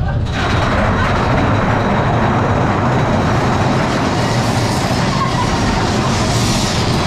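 Arrow mine-train roller coaster train running along its track through an enclosed rock cavern: a loud, steady rumble and roar of wheels on rails. It rises sharply about a third of a second in as the train enters the tunnel.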